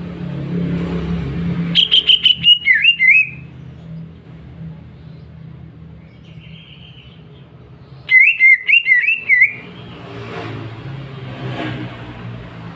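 Cucak ijo (green leafbird) singing two short, loud phrases of quick, slurred whistled notes with sharp clicks, about 2 seconds in and again about 8 seconds in. A steady low rumble runs underneath.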